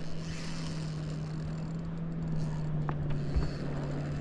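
Boat motor running with a steady low hum, under a haze of water and wind noise. There is a small click about three seconds in.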